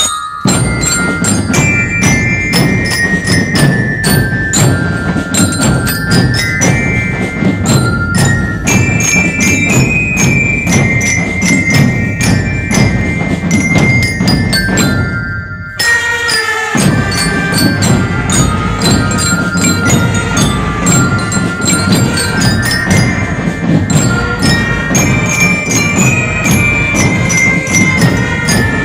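Marching drum band playing: bell lyres (marching glockenspiels) carry a bright melody over a steady beat of snare and bass drums. The sound breaks off briefly about halfway through, then the band plays on.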